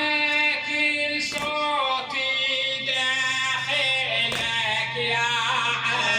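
A male lamentation reciter (radood) singing a long, wavering melodic line of a Husseini latmiya, with a steady low tone held beneath the voice from about a second in.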